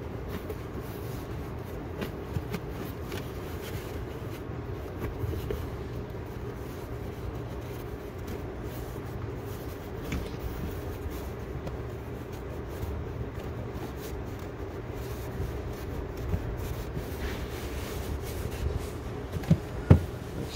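Steady low hum with faint scattered clicks and handling noises from wiring being worked in under a car's interior carpet, and one sharp knock shortly before the end.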